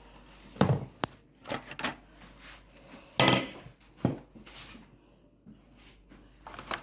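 Spoon knocking and scraping against a bowl and containers while moi moi bean batter is scooped into them: about half a dozen irregular clatters, the loudest about three seconds in.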